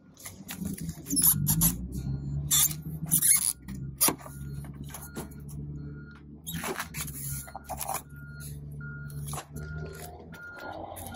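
Clicks, knocks and rustles of a hand working the plastic flip cap of a pickup's trailer-wiring connector at the rear bumper, over a steady low hum. From about two thirds in, a short high beep repeats about twice a second.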